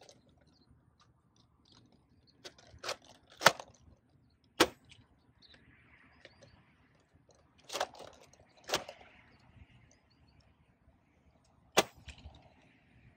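Dart Zone Max Tomcat spring-powered foam dart blaster being primed and fired: a run of sharp plastic clacks, the loudest about three and a half seconds in, more around eight to nine seconds, and a single sharp one near the end. Three shots are fired, two level and one angled.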